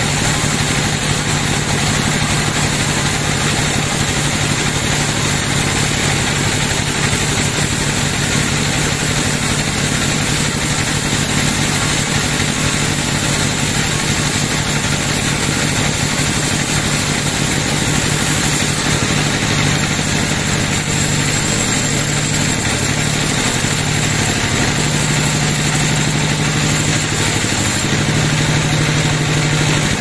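Large band sawmill running steadily as its blade cuts lengthwise through a teak log, a constant machine drone with a thin high whine over it.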